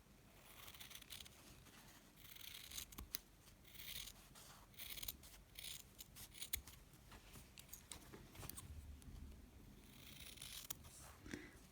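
Faint, repeated snips of scissors trimming the excess seam allowance from sewn fabric, each cut a short crisp rasp with small clicks between.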